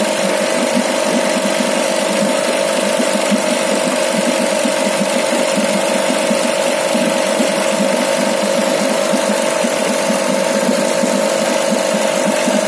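Tohatsu outboard motor idling steadily, with an even, rapid pulsing beat and a constant hum.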